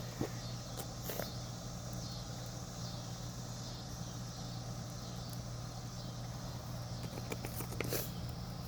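Steady low hum under faint outdoor background noise, with a few light clicks about a second in and again near the end.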